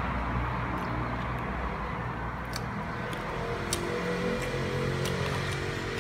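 A steady low motor hum, with a few sharp clicks from biting and chewing fried chicken wings.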